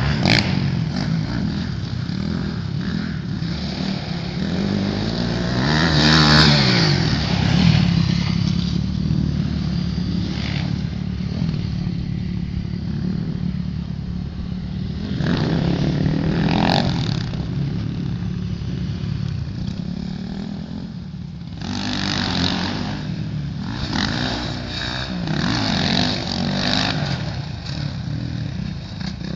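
Motocross dirt bike engines revving as the bikes ride laps of a dirt track. Their notes rise and fall over and over, swelling louder several times as bikes pass nearer or open the throttle.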